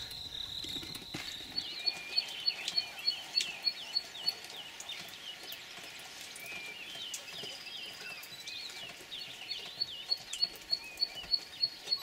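Chorus of chirping insects: a cricket-like chirp pulses evenly at about four a second in two spells, a couple of seconds in and again near the end, among repeated short chirping calls.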